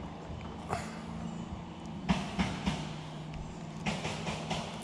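Several short splashes in the water, the loudest about two seconds in and more near the end, over a steady low hum: a hooked bass thrashing at the surface as it is played to the boat.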